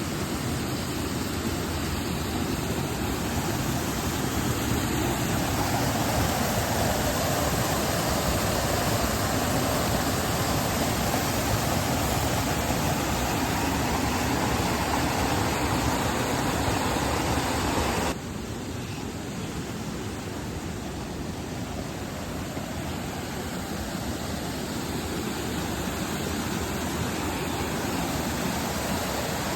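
Waterfall rushing as a steady wash of water noise. About two-thirds of the way through it drops suddenly to a lower level.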